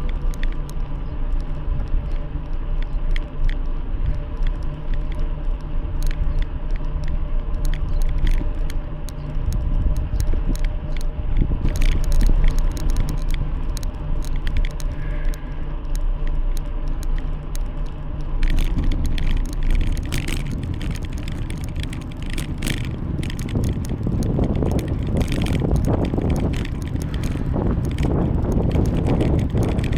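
Bicycle riding on a road, heard from the bike itself: a steady rumble of tyres and wind with frequent light rattling clicks. A little past halfway the rumble gets rougher and the clicks come more often.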